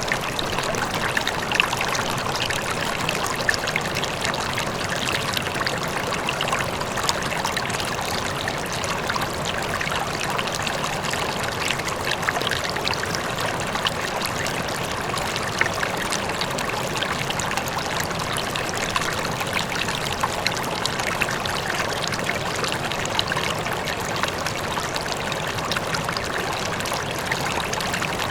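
River water flowing over rocks, a steady rushing with small splashes and trickles, and a faint waterfall in the distance.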